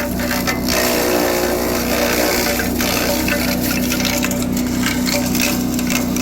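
Super Tomahawk wood chipper driven by a new Xtremepower 7 hp small engine, running steadily at speed, with irregular bursts of crackling and splintering as wood is fed through and chipped.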